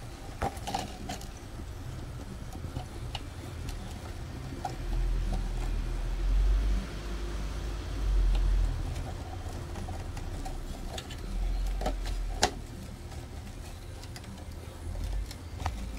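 Scattered light clicks and taps of wire leads and plastic parts being handled inside a printer, with a low rumble that swells and fades several times.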